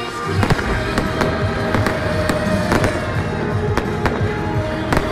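Aerial fireworks bursting in a rapid, irregular run of sharp bangs, often less than half a second apart, with music playing underneath.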